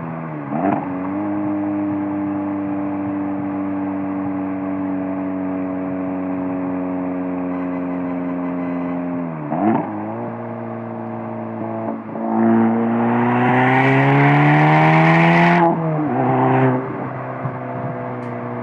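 Exhaust of a Golf R's turbocharged 2.0-litre four-cylinder through a Borla S-type valved catback, recorded at the rear bumper: steady cruising with brief loud bursts at gear changes near the start and about ten seconds in. About twelve seconds in, it pulls hard with the pitch rising for about three seconds, cuts off sharply on lift-off, gives one more short burst, then settles back to steady cruising.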